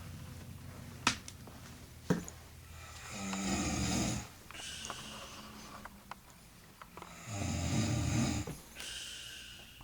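A woman snoring in her sleep: two loud, rough snores about four seconds apart, each followed by a softer breathy out-breath. Two sharp clicks in the first two seconds.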